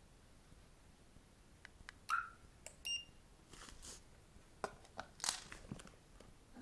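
Car alarm system remote being handled: small clicks and two short electronic beeps, about two and three seconds in, with some brief rustling.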